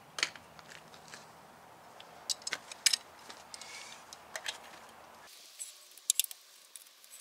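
Scattered sharp metallic clinks and taps of a lug wrench and socket being handled and fitted onto a truck wheel's lug nuts.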